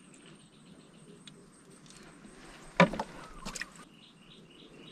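A bird chirping in a quick, evenly repeated pattern from near the end, after a single short, loud knock-like sound about three seconds in.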